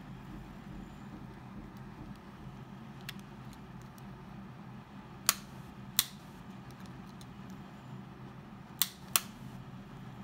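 Two pairs of sharp, short clicks over a steady low hum, from plastic earbud charging cases being handled.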